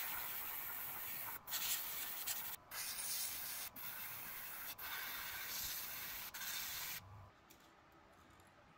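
Airbrush spraying paint in a steady hiss, cut off briefly five times, then stopping about seven seconds in.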